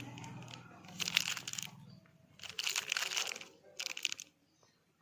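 Packaging crinkling and rustling in three short bursts, with a low steady hum under the first two seconds.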